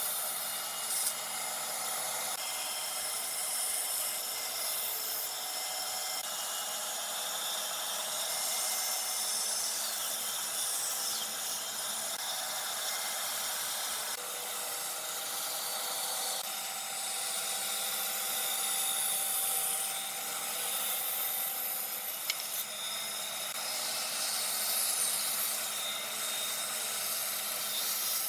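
Power tool working wood, a steady noise that shifts abruptly several times as different passes are cut together, with a single sharp click about three-quarters of the way through.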